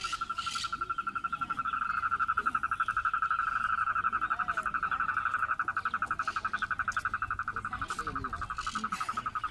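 A frog calling: a steady, rapid pulsed trill held at one pitch, that stops abruptly near the end.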